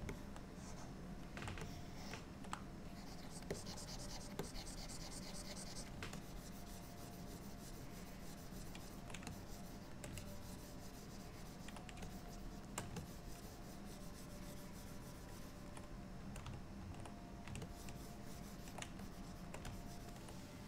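Pen stylus scratching on a drawing tablet, with scattered keyboard clicks and a steady low hum underneath. A quick run of fast scratchy strokes comes about three to six seconds in.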